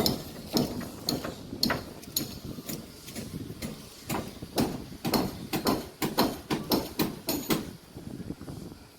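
A run of irregular sharp knocks and clunks, a few a second, sparse at first and thickest after about four seconds.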